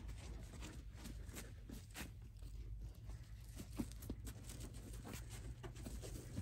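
Young puppies' paws padding and scratching on crinkly puppy pads and a blanket: scattered light clicks and rustles over a low steady hum.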